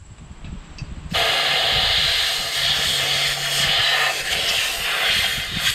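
Compressed-air blow gun on a shop air hose blasting into an open engine block, a loud steady hiss that starts about a second in, blowing out dust and debris. Faint handling clatter comes before it.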